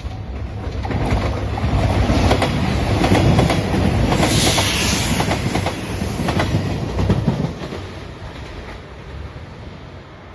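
JR Shikoku 2700 series diesel limited express train passing close by at speed, wheels clicking over rail joints. It builds about a second in, is loudest through the middle and dies away after about seven and a half seconds.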